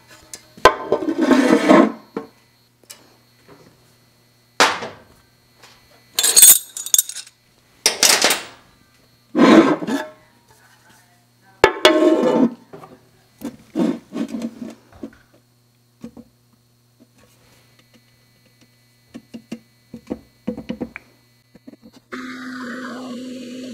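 Metal clanks and clinks as an aluminium valve cover and tools are handled and set down on a drill press's cast-iron table, about ten sharp knocks with ringing in the first fifteen seconds. Near the end the drill press motor starts and runs steadily, a step bit in the chuck.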